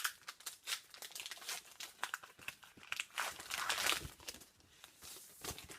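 Hockey card pack wrapper crinkling and tearing as the pack is opened, with cards being handled; a denser, louder stretch of crinkling about three to four seconds in.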